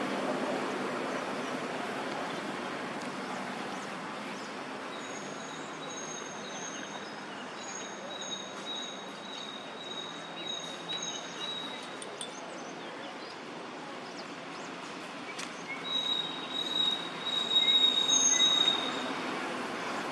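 Steady outdoor background hiss with a thin, high, steady whine at two pitches that comes and goes, loudest near the end, and a few faint clicks.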